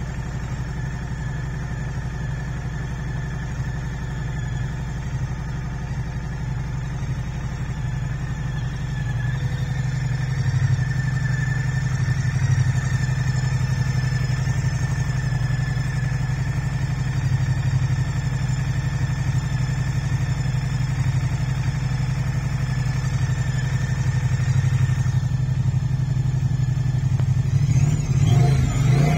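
Moto Guzzi V100 S's transverse V-twin engine idling steadily in neutral, then beginning to rev near the end.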